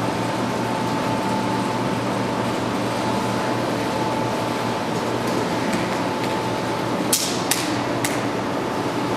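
Steady fan-like hum and hiss with a faint constant tone. About seven seconds in come three sharp clicks, roughly half a second apart.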